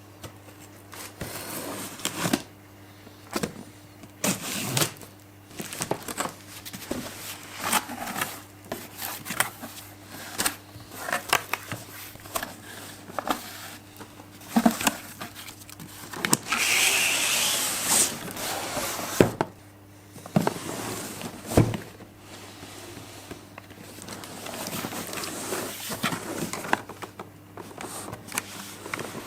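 Unboxing sounds: a cardboard box and plastic packaging being handled, with scattered clicks and knocks and a longer rustling, tearing noise about halfway through. A faint steady low hum runs underneath.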